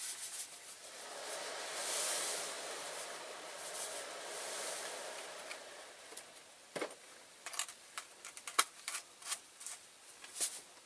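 Caustic soda being poured into a paint-stripping bath: a rushing hiss that swells and fades over about six seconds. Scattered light clicks and knocks of handling follow.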